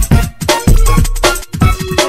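Background music with a fast, steady drum beat and heavy bass.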